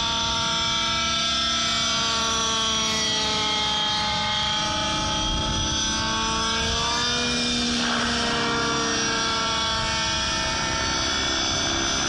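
Petrol-engined Align T-Rex 700 radio-controlled helicopter running, its engine and rotor pitch dipping and rising again twice.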